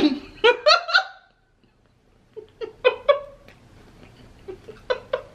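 A woman making short, high-pitched wordless vocal sounds, like squeaky hums, in three brief clusters, with a gap of near silence between the first and second.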